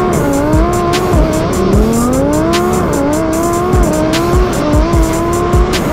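Twin-turbo Lamborghini Huracán V10 running hard under acceleration, its engine note rising and dipping repeatedly, mixed with background music and a thumping beat.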